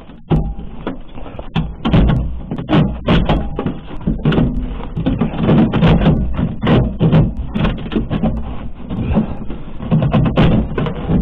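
A dense run of irregular knocks and clattering, several a second, over a low rumble.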